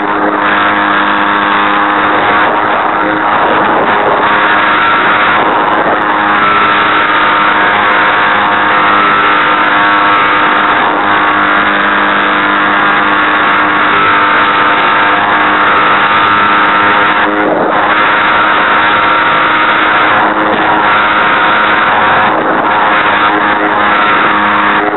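Geared electric motor and propeller of an RC Super Cub, heard from a camera on the airframe, running steadily in flight: a whine of several tones that shifts slightly in pitch, over rushing wind noise. The uploader says the gearbox is broken, which shakes the plane.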